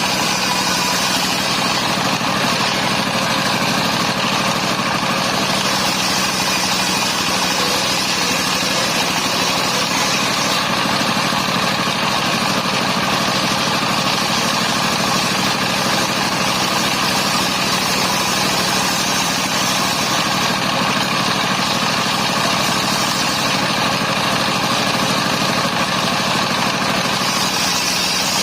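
Engine of a portable circular sawmill running at a steady speed, a constant mechanical drone with no change in load.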